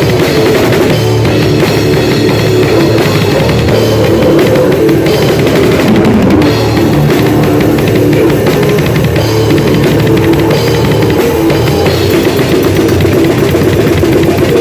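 Drum kit played loudly and fast, bass drum and cymbals hit in a dense, unbroken pattern.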